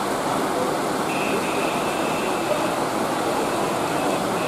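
Heavy rain falling on a paved street, a steady hiss. A faint high steady tone comes in about a second in, lasts over a second, and returns briefly near the end.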